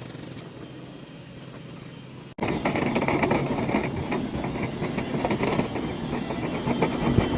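Steady motor hum, then, after a sudden cut about two seconds in, a much louder rough rushing noise with dense rattling.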